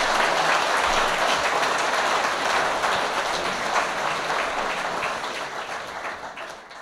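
Audience applauding, a steady mass of clapping that fades away near the end.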